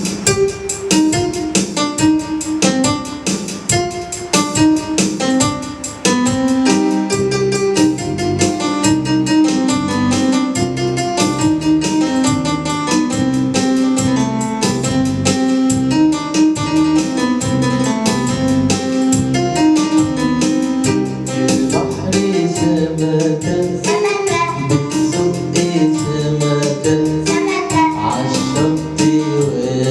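Upbeat song music: a keyboard melody over a steady, regular beat, with a singing voice coming in during the last third.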